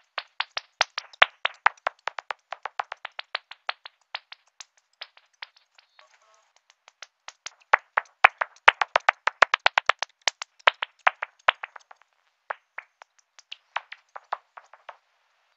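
Bat echolocation calls made audible by an ultrasonic bat detector, heard as rapid dry clicks. The clicks come in trains of several to about ten a second, crowd together in a fast run around the middle, and thin out near the end.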